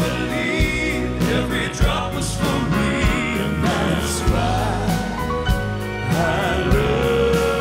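Southern gospel male vocal quartet singing live, a lead voice with vibrato over the group's harmonies, backed by a live band.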